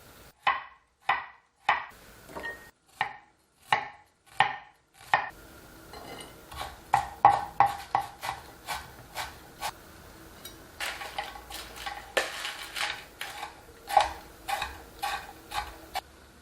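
Knife chopping on a cutting board in a steady rhythm: spaced single strokes at first, then a quicker, denser run from about five seconds in.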